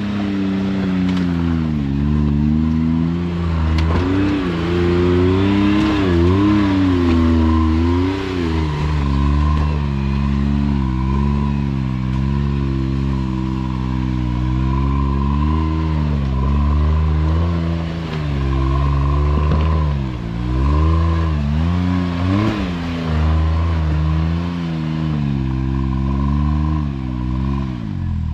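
Side-by-side UTV engine running at low speed with the throttle worked on and off, its pitch rising and falling over and over, over a steady high whine.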